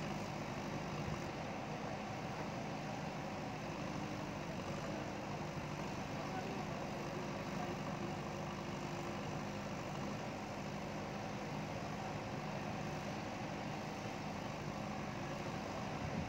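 JCB ecoXcellence backhoe loader's diesel engine running steadily at an even pitch.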